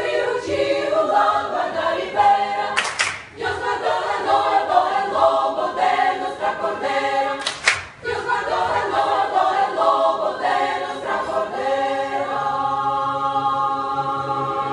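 A choir of women's voices singing in harmony, with two brief sharp accents about three and eight seconds in, settling into a long held chord near the end.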